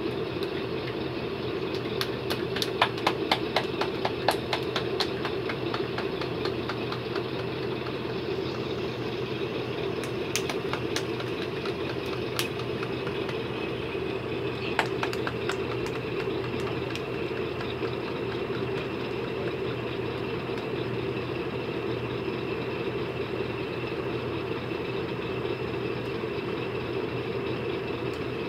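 Steady mechanical hum with a low drone, broken by runs of quick, sharp clicks a couple of seconds in, and again about ten and fifteen seconds in.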